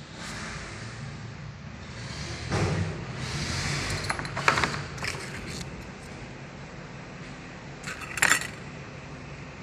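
Light metallic clinks and rattles of piston rings and engine parts being handled on a bench, a few scattered knocks with the loudest about four and a half and eight seconds in, over a low steady hum.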